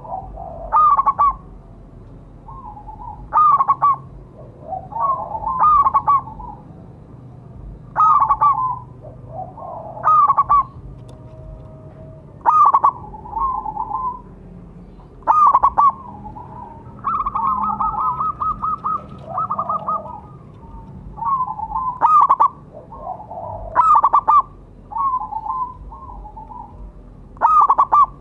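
Zebra dove (perkutut) cooing: short, loud phrases of rapid staccato notes repeated about every two seconds, with one longer, drawn-out phrase about two-thirds of the way through.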